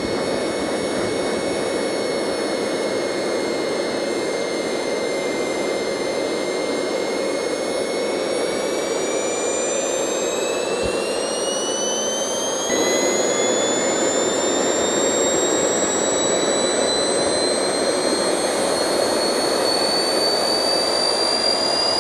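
Small model turbojet engine running: a steady rushing noise under a high turbine whine. The whine holds its pitch, then climbs steadily through the second half as the engine spools up. The sound gets suddenly louder about halfway through.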